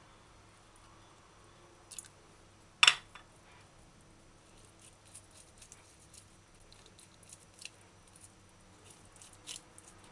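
A table knife clicking and scraping against a ceramic plate as boiled salt codfish is scraped of its skin and scales and picked over for bones, with one sharp knock just under three seconds in and light scattered clicks after it.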